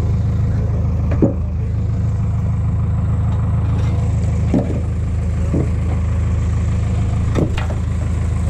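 A large engine running steadily at a low, even pitch, with a few short knocks or clanks over it.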